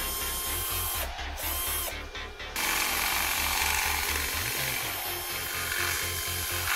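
Cordless drill boring out a clip hole in a carbon-fibre body panel to fit a round clip. It stops briefly about a second in and again near two seconds, then runs steadily.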